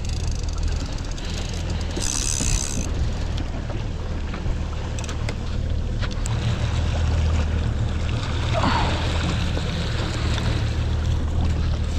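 A boat's outboard motor running steadily underway, a low drone under the rush of wind and water. A short hiss comes about two seconds in.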